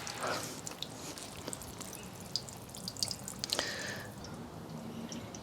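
Water draining out of a Samsung front-load washing machine through its bottom drain-plug opening, dripping irregularly as the flow tails off. The water was left standing in the machine because a clogged drain pump and hose would not pump it out.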